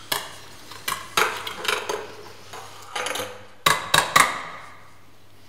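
Metal ladles clinking and scraping against stainless steel pots as soup is ladled out: a string of sharp knocks, the loudest three coming close together about four seconds in.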